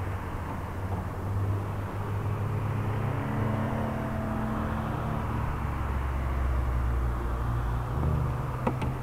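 Small racing car's engine idling steadily at low revs with the car stationary.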